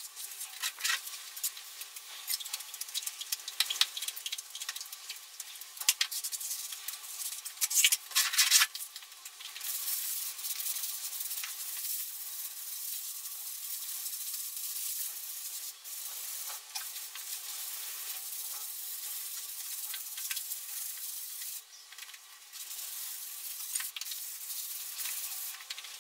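Hand float rubbed over fresh sand-and-lime wall plaster, a gritty scraping. Separate strokes for the first eight seconds or so, then a near-continuous rubbing with a few brief breaks. Stones left in the lime can scratch the surface.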